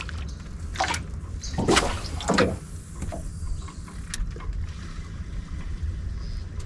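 A spinning rod being cast and a lure worked from an aluminium boat: a few short swishes and knocks, the loudest around two seconds in, over a low steady rumble.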